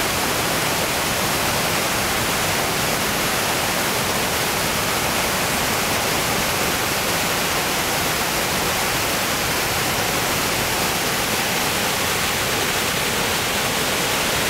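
Large river rapids rushing: a steady, even wash of whitewater noise with no break.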